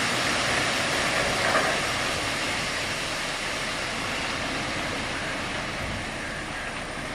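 Crushed slag pouring and sliding out of a raised tipper truck body onto a growing pile: a steady rushing hiss that slowly eases off, with the truck's engine running underneath.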